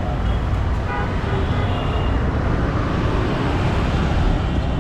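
Steady road traffic noise from a busy city street: the continuous low rumble of passing engines and tyres.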